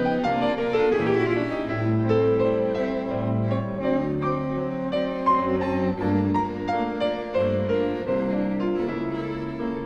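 A Steinway grand piano and a string quartet (two violins, viola and cello) playing a classical-style folk-song arrangement together. The cello gives separate low notes about once a second under the piano and violin lines.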